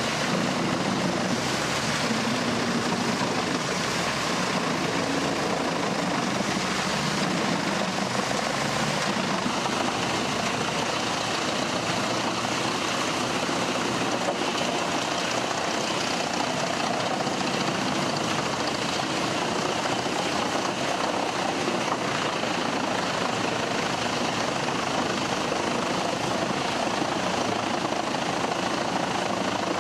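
Wood-chipping machine running steadily: a continuous mechanical noise with no separate knocks or pauses.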